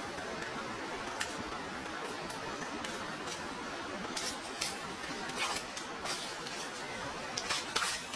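Steady hiss of running stream water, broken by a few short sharp clicks.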